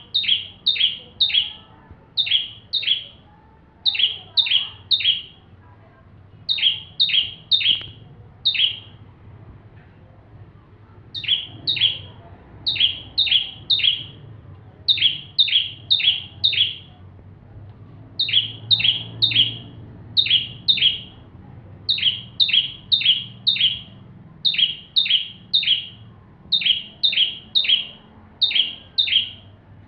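Ciblek (prinia) singing without pause: quick groups of three or four sharp, high notes, each sweeping downward, repeated about once a second with a few short breaks.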